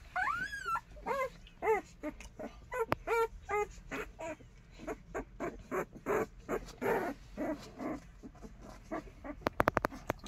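Thirteen-day-old Tibetan mastiff puppies whimpering and squealing as they crawl at their nursing mother: many short, high cries that rise and fall, a few each second, with a longer rising squeal near the start. Near the end comes a quick run of sharp clicks, the loudest sound here.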